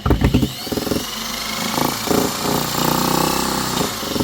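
Spin-art box's motor spinning the painted canvas: a loud, steady whirring with a whine that rises as it spins up, and some clattering knocks in the first second.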